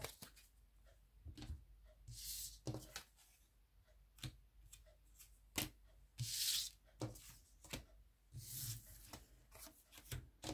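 Tarot cards being shuffled by hand: scattered light clicks and taps of the cards, with two longer rustling swishes, about two seconds in and about six and a half seconds in.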